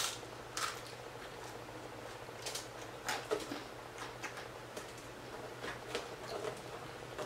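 Close-up chewing of a calzone's crispy baked crust: scattered soft crunches and wet mouth clicks at irregular intervals.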